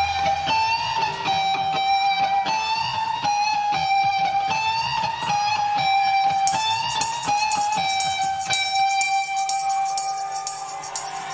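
Electric guitar played alone, picking a repeating figure of short single notes. About six seconds in, a steady, evenly spaced ticking joins it.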